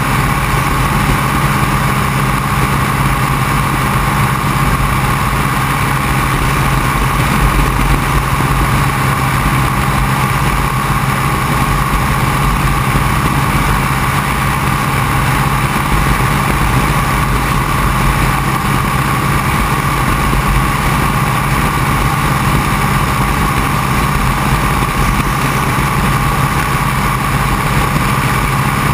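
Open-cockpit biplane's piston engine running steadily in cruising flight, with wind noise rushing past the open cockpit.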